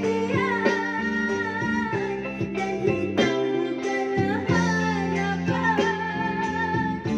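A small band playing live: electric bass, guitars, keyboard and electronic drums, with a sung melody over a steady beat.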